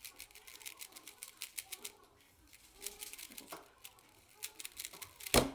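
Rubik's Cube being turned rapidly during a speed solve: a fast, irregular rattle of plastic clicks. A single sharp thump comes near the end.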